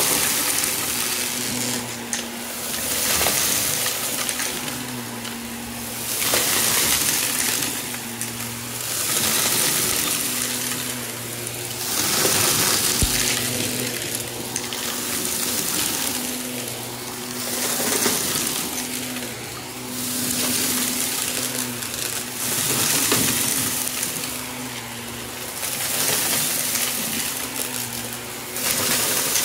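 Shark vacuum running over carpet and sucking up a thick layer of small debris. A steady motor hum sits under a rushing, rattling clatter of pieces going up the nozzle. The clatter swells and eases with each push and pull stroke, about every two to three seconds.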